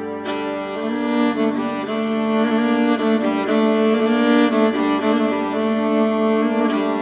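Background music played on bowed string instruments, with notes moving step by step over held tones.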